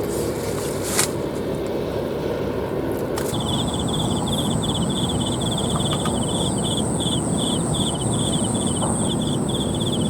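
Insects chirping: from about three seconds in, a fast pulsed chirp in short groups alongside a steady high whine, over a steady rushing background. A sharp click about a second in.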